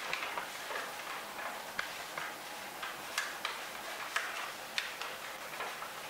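A sheet of A4 paper being folded and creased by hand into an origami bird, giving irregular short crackles and ticks.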